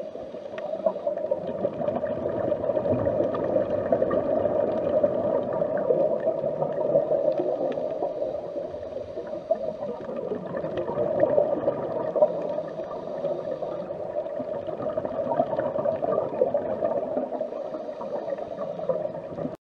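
Underwater water noise: a steady gurgling with a fine crackle, cutting off abruptly just before the end.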